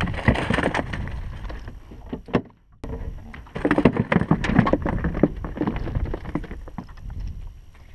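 Noise of a small fishing boat on open water: wind and water against the hull, with scattered knocks and rattles. It drops out briefly about two and a half seconds in.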